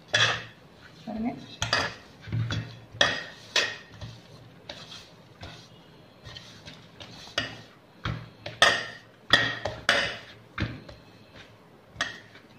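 Hand kneading soft rice-flour murukku dough in an aluminium basin: irregular metallic knocks and clinks as the hand and the gold bangles on the wrist strike the basin, with quieter stretches between.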